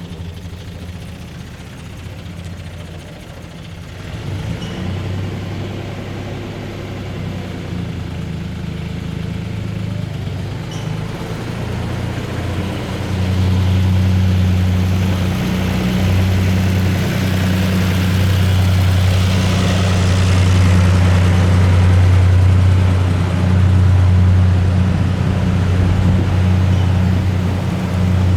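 Steady low engine hum, like a vehicle idling, growing louder about halfway through as a rushing noise joins it.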